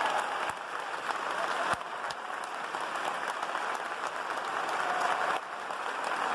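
Audience applauding in a large church: many hands clapping steadily.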